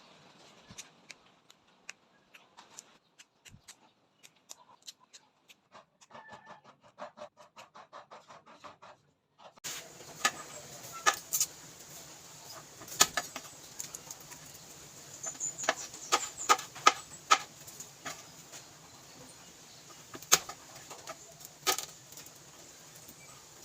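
A run of short sharp taps and clicks, faint and fairly regular at first, then louder and irregular over a steady background hiss after a change about ten seconds in.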